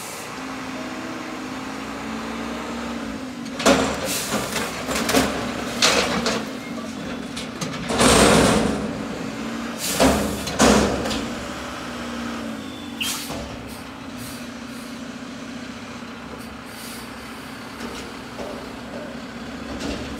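Front-loading garbage truck's engine running and rising and falling in pitch as it works the hydraulic forks, lifting a dumpster over the cab to empty it into the hopper and lowering it again. Several loud bangs of metal on metal, and a loud crashing rush of trash falling into the hopper about eight seconds in.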